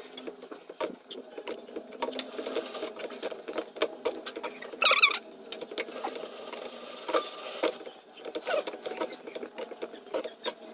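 Wooden chopsticks and a slotted spatula scraping and tapping against a nonstick frying pan while dry shredded pork floss is tossed and roasted: a quick, uneven run of light clicks and scrapes. A brief high squeak comes about halfway through and is the loudest moment.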